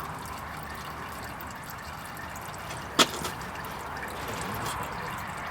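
Motor oil trickling in a steady stream as it is poured. About three seconds in there is a single sharp click or knock, the loudest sound.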